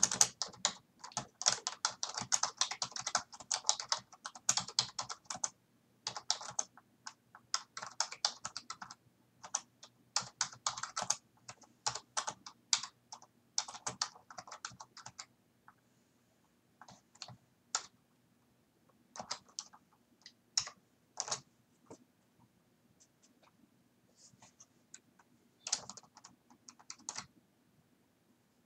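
Typing on a computer keyboard: rapid runs of key clicks for about the first fifteen seconds, then scattered single clicks, over a faint low hum.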